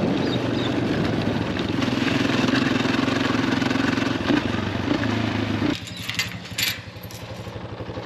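Honda dirt bike engine running under throttle as the bike is ridden, its pitch rising in the middle. About six seconds in the throttle closes and the engine drops to a quieter, steady run, with a few sharp clicks.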